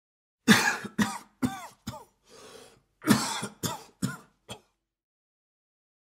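A man coughing in two fits of four coughs each, with a breath drawn in between them. In each fit the first cough is the loudest and the rest get weaker.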